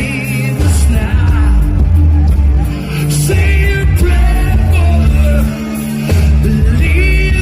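Live reggae band music with a heavy bass line that drops out briefly a few times, sharp drum hits, and a wavering melody line above.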